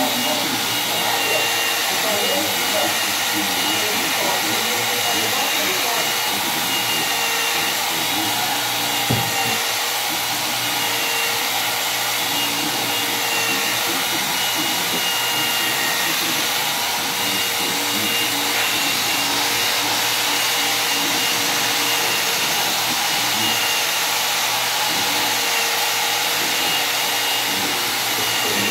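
Handheld electric polisher running steadily, its pad working along the edge of a granite countertop: a constant motor whine with a high tone over a steady rushing noise, and one brief knock about nine seconds in.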